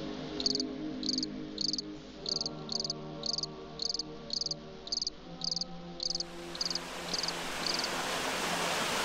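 A cricket chirping evenly, about two chirps a second, over soft held musical notes. From about six seconds a rushing-water noise fades in and swells as the chirps die away.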